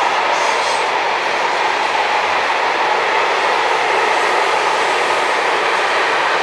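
Long intermodal freight train of container wagons rolling along the line, a steady rushing noise of wheels on rail.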